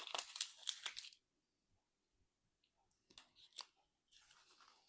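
Small plastic wrapper crinkling as it is handled and opened by hand, mostly in the first second, followed by a few faint clicks and soft rustles of the packaging.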